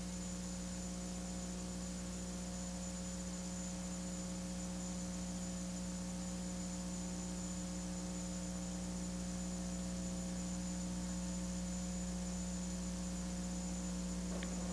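Steady electrical mains hum: an even low buzz with several overtones over faint hiss, unchanging throughout.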